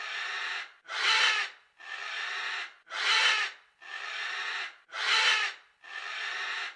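An animal's raspy, hissing breaths, alternating a louder stroke and a softer one about once a second in a steady rhythm.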